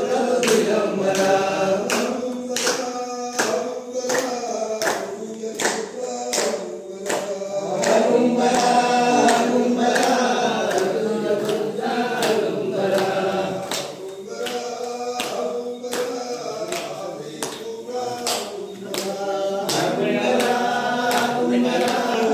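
A group of men singing a devotional bhajan in unison, clapping hands in time at about two claps a second.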